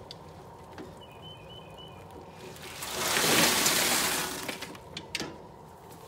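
A load of boiled crawfish sliding out of the cooker's tipped basket down a steel chute into an ice chest: a rushing pour that swells about halfway through and dies away over about two seconds, followed by a few sharp knocks.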